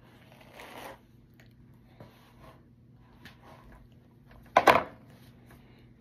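Fabric rustling and small clicks of clothes being handled, with one loud, brief thump about four and a half seconds in.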